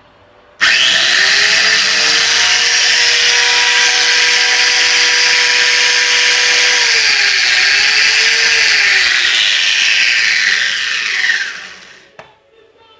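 Electric motor of a Wap Super pressure washer switched on, starting abruptly and running at full speed with a loud high whine. Its pitch dips and recovers twice near the middle, then it is switched off and winds down, the whine falling away.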